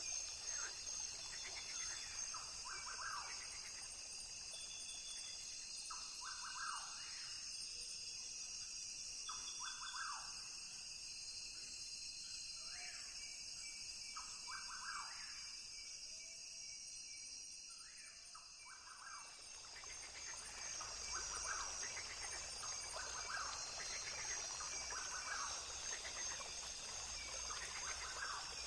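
Rainforest ambience: a steady high-pitched insect drone with short animal calls repeating every second or two. The calls thin out for a few seconds past the middle, then pick up again.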